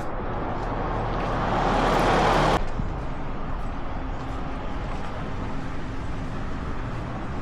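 Road traffic: a motor vehicle's noise grows louder over about two seconds and cuts off suddenly, then a steady rumble of traffic or engine noise continues.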